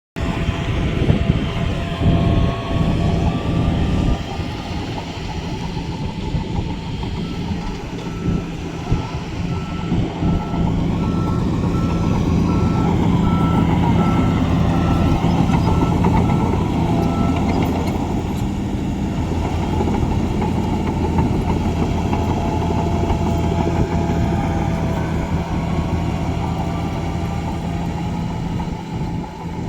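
Heavy diesel construction machinery running steadily, with a reverse alarm beeping at a regular pace for about ten seconds starting roughly a quarter of the way in.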